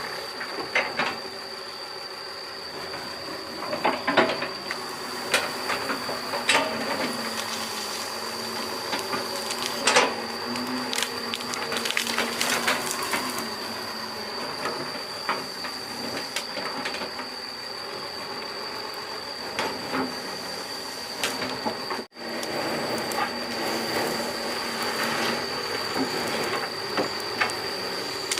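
Doosan 140 excavator working: the engine runs steadily under a constant high whine, with repeated clanks and knocks of metal and rock as it digs. The sound drops out for an instant about three quarters of the way through.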